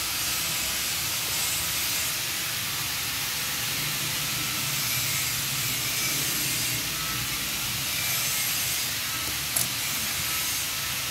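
Steady, even hiss with a faint low hum under it, and one short click about nine and a half seconds in.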